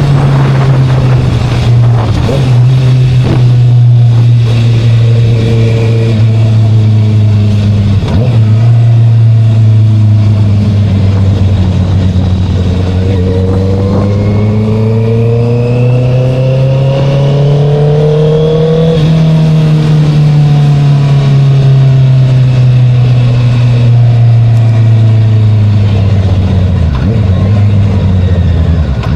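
Honda CBR650R inline-four engine through an Akrapovic exhaust, heard while riding. The pitch drops sharply a few times in the first eight seconds, like gear changes. The engine note then rises steadily for several seconds and falls back, with one more dip near the end.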